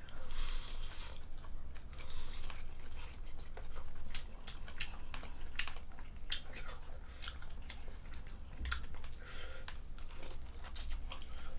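Two people chewing mouthfuls of spicy seafood bulgogi with shrimp, squid, beef tripe and bean sprouts. The chewing gives a steady run of wet smacks and short crunchy clicks.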